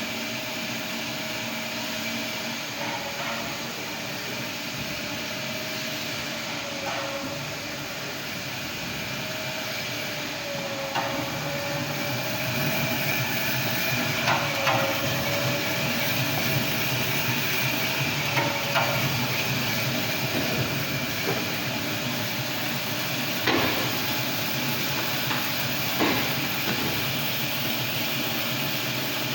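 Automatic towel cutting machine running with a steady mechanical hum and a wavering whine, and a sharp knock every three to five seconds.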